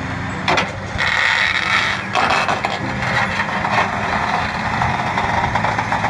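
Caterpillar D10N crawler bulldozer's diesel engine working hard under load as the blade shoves a large boulder, with a steady engine drone and knocks and clanks from the machine.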